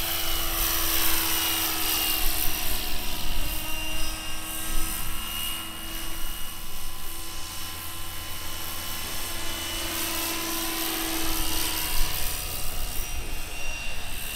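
Electric-powered radio-controlled scale model of an Aérospatiale SA-315B Lama helicopter in flight: the steady high whine of its electric motor and drivetrain over the whir of the rotor blades, shifting in tone as it flies by near the start and again near the end.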